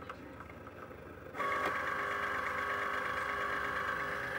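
Cricut Explore Air 2 cutting machine's motors whining steadily as they drive the carriage and mat. A few light clicks come first, and the whine starts suddenly about a second and a half in.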